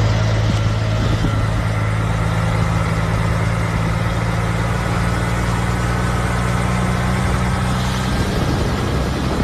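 An engine idling steadily, a low even hum that holds without change and stops shortly before the end.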